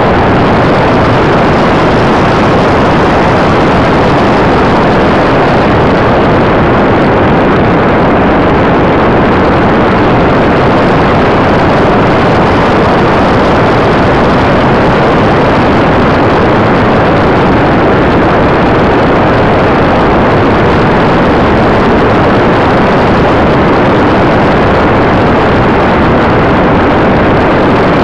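Steady, loud rush of airflow over the onboard camera's microphone on a radio-controlled glider in flight, with no motor tone heard.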